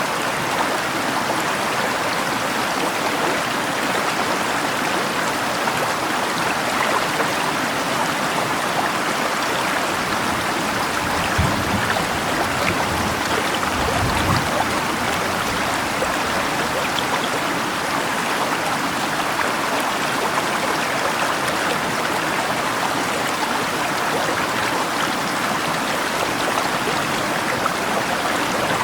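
River water rushing steadily, mixed with rain, making an even, unbroken water noise. Two brief low rumbles come near the middle.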